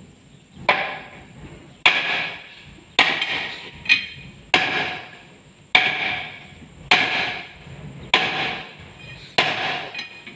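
Sledgehammer blows on a steel bar held against a Landini DT85 tractor's front wheel hub, knocking the hub loose. Metal on metal: about eight heavy strikes a little over a second apart, each ringing briefly.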